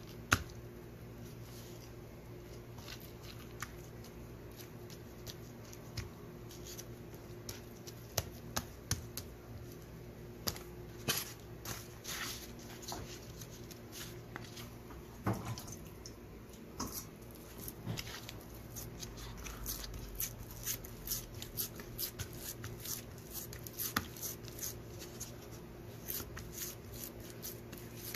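Banana leaf crinkling and rustling as hands fold and smooth it, with soft pats of fingers pressing damp rice dough flat on the leaf: scattered, irregular clicks and crackles, busier from about eight seconds in, over a steady low hum.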